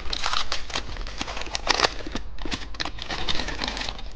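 Crinkly plastic candy wrapper being handled and torn open: a quick, irregular run of crackles and rustles.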